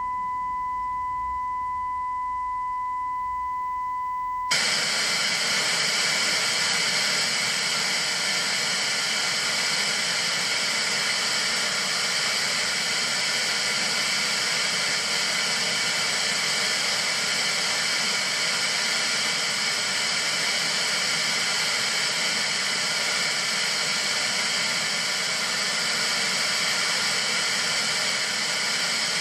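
A steady high tone from HSV-7's closedown on a 1977 Kriesler 660/55 colour television cuts off abruptly about four and a half seconds in as the analogue transmitter goes off air. The set's receiver then gives a steady hiss of static: the sound of no signal.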